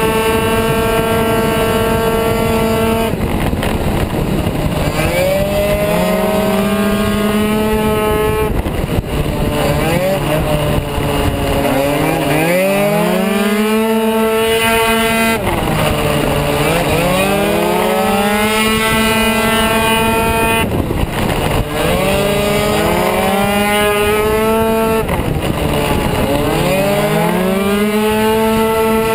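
Kymco Super 9 two-stroke racing scooter engine, in 70 cc class trim, heard on board under hard riding. Its high, steady tone drops away about five times as the throttle closes for corners, then climbs back up each time as the throttle opens again.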